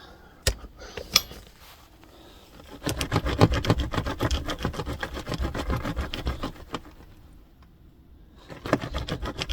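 Two sharp knocks, then a fast, even run of creaking clicks from the sagging floor in two spells, about four seconds and then again near the end; the floor is sinking under the weight of the old chimney.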